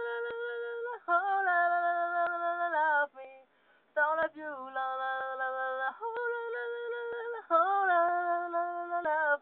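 A young man singing unaccompanied in a high voice: long held notes in several phrases, with a short break about three seconds in and wavering held notes at the phrase ends.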